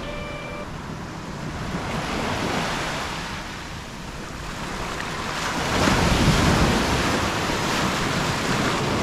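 Ocean surf washing onto the beach, swelling and ebbing, with the loudest wave breaking a little past halfway through. Wind rumbles on the microphone.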